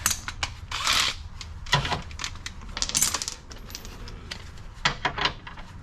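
Metal sockets and hand tools clinking and rattling as a 14 mm socket is picked out and tried on a bolt, with a series of sharp, irregular metallic clinks.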